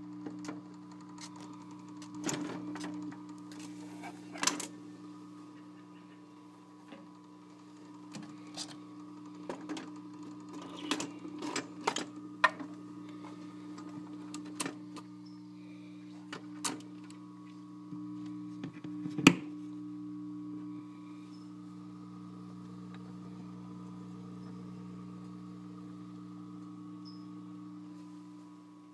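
Restored 1953 RCA 3-HES-5 record player running with no music: a steady low hum from the machine while the platter turns, with scattered clicks and knocks, the loudest about 19 seconds in.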